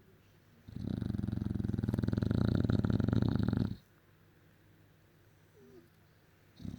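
English bulldog snoring in its sleep: one long, rattling snore lasting about three seconds.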